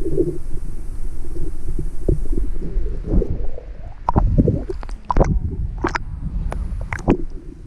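Water sloshing against a waterproof camera housing at the surface: a low, muffled rumble, joined from about three seconds in by a run of sharp splashing clicks as small waves break over the housing.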